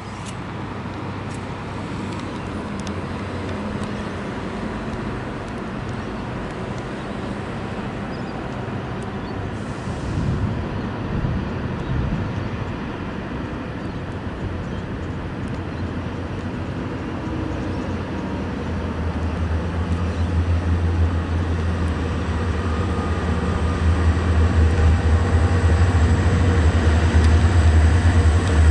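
Diesel locomotives hauling a goods train approach, and their low engine drone grows steadily louder through the second half.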